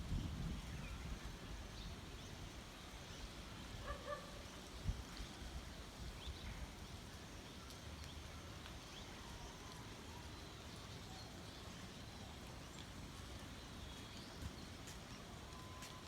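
Quiet rural outdoor ambience: scattered faint bird chirps over a low steady rumble that is strongest near the start.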